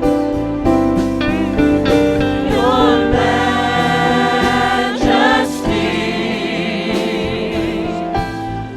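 Gospel singing by a choir or congregation with instrumental accompaniment: sustained, wavering sung notes over a steady backing.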